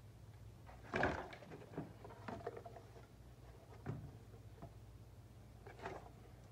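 Plastic air intake box of a Toyota Sienna being worked loose and lifted out of the engine bay: a handful of short knocks, clunks and scrapes, the loudest about a second in, over a faint low steady hum.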